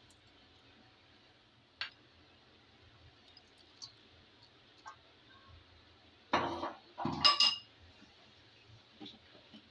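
Kitchen dishware clinking against a cooking pot: a sharp tap, a few faint knocks, then two loud clatters about a second apart, the second with a short metallic ring.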